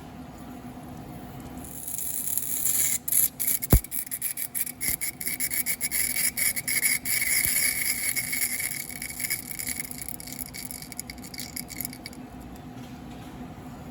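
Hankook NSD CNC EDM drill burning a 2 mm electrode into a thin stainless steel tube wall: a dense crackling hiss full of rapid clicks starts about two seconds in and stops a couple of seconds before the end, over the machine's steady hum. A brief falling chirp sounds about four seconds in.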